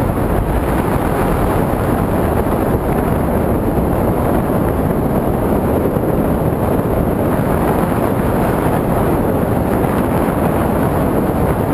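Loud, steady wind rushing over the microphone, an even roar with no breaks.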